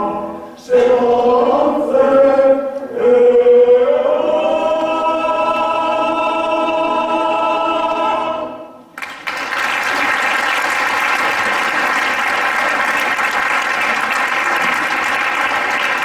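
Male choir singing a few short phrases and then a long held final chord that cuts off sharply, followed by steady audience applause.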